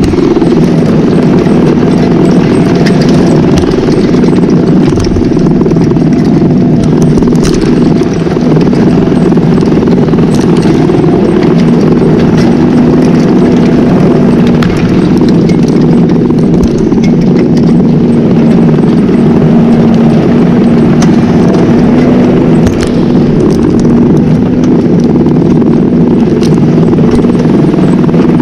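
Tractor engine running steadily under load while ploughing, with occasional short knocks over the drone.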